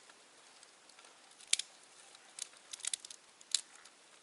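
A few short, sharp crackles and snaps of dry twigs and leaves being handled, at irregular intervals.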